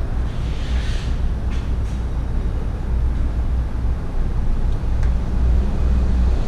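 Steady low wind rumble buffeting the microphone of a body-worn GoPro 5, with a few brief rustles about a second in.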